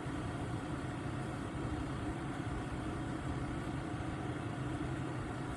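Steady low mechanical hum of a diesel heater running in an ice-fishing hub shelter, even and unchanging throughout.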